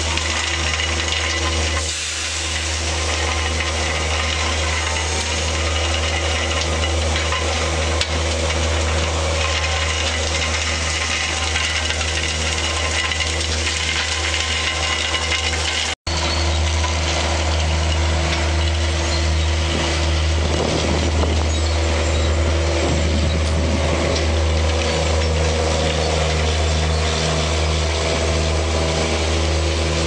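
Fatra railway vacuum track-cleaning machine running, its engine and suction making a steady, heavy drone. The sound breaks off for an instant about halfway through.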